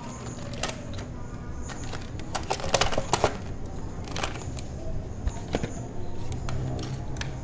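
Handling of a cardboard box and a plastic toy blaster as it is lifted out of its cardboard insert: scattered clicks, taps and scrapes of cardboard and hard plastic, with a cluster of louder clicks about two and a half to three seconds in.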